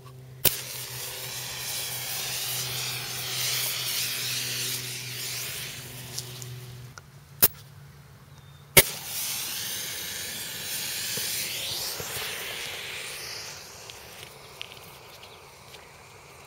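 A sharp click, then a gopher smoke bomb's fuse hissing as it burns for about six seconds. Two more sharp clicks, then hissing again for about five seconds, fading out.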